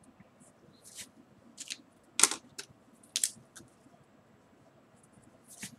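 Felt-tip marker pen on paper: a handful of short, separate scratchy strokes and clicks, the loudest a little over two seconds in, as numbers and brackets are written.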